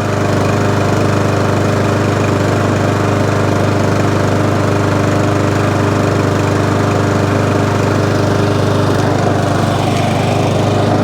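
Mountfield SP454 self-propelled petrol lawn mower engine running steadily, warming up from cold. There is no knocking from underneath: the fault is fixed.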